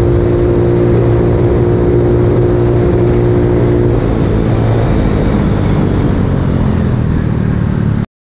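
Vehicle engine running at a steady speed while driving, with road and wind noise; its tone shifts about four seconds in, and the sound cuts off suddenly near the end.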